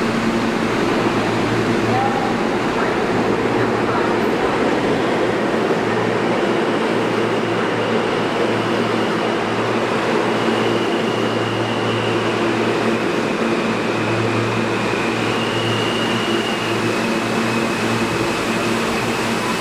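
An R160A subway train pulling into an underground station and running along the platform: a steady, loud rumble of wheels on rails with a low hum. A thin high whine comes and goes in the second half as the train slows.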